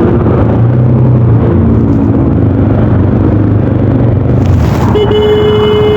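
Voge 300DS single-cylinder motorcycle engine running under way, a steady loud rumble. About five seconds in, a steady pitched tone sounds for about a second over it.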